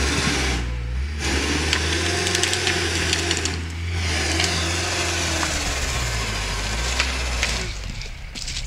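Engine of a log-skidding vehicle running hard under load as it drags spruce logs, with scattered cracks and knocks. It dips briefly about four seconds in and eases off near the end.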